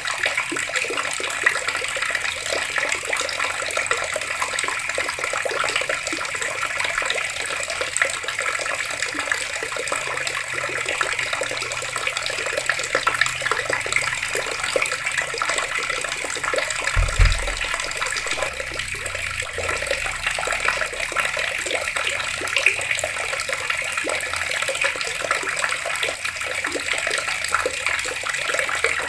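Water taps running steadily, an even splashing rush of water. A brief low thud comes a little past halfway.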